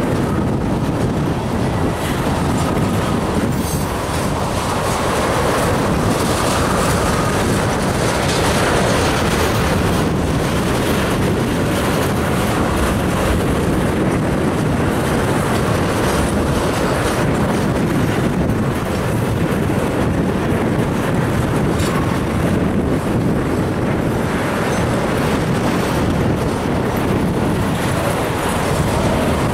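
Empty railroad tank cars of a unit ethanol train rolling steadily past: a continuous rumble of steel wheels on rail, with the clickety-clack of trucks passing over the track.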